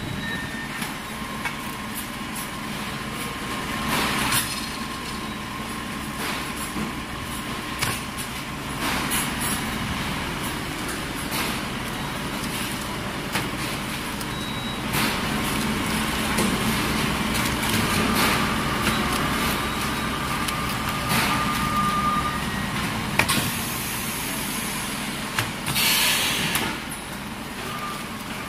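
Vacuum skin packaging line running: a steady machine noise with scattered clicks and knocks of plastic trays being handled, and short pneumatic air hisses, the loudest near the end.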